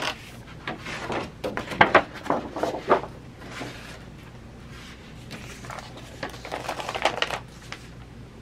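A large sheet of drawing paper lifted off a file folder on a gel plate and set aside: rustling and light knocks for the first few seconds, then more paper rustling past halfway.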